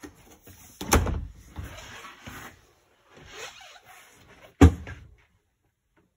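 Two hard knocks from the motorhome's interior doors being handled, one about a second in and a louder one near the end, with scuffing and handling noise between.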